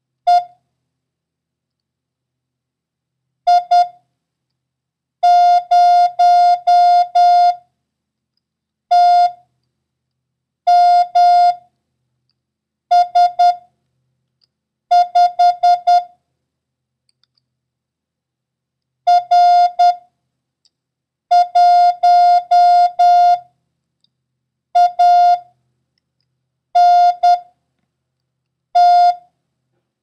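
Morse code practice tone: short and long beeps at one steady pitch, grouped into about a dozen letters and numbers with gaps of a second or two between them. It is a random run of code characters sent for copying by ear.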